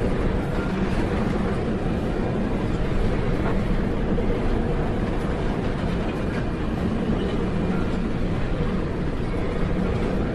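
Steady low rumble under a dense rushing noise, typical of a ship's machinery and heavy weather heard aboard, with a faint steady hum and no letup.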